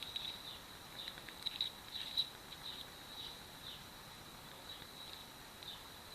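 Scattered light clicks and small scrapes over a steady high-pitched whine.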